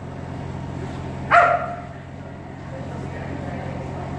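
A Kerry Blue Terrier barks once, sharply, about a second in, over a steady low hum.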